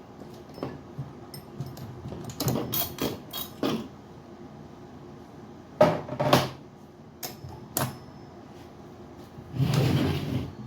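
Handling noise: a series of knocks, clicks and rattles in irregular clusters, ending in a scrape or rustle about a second long.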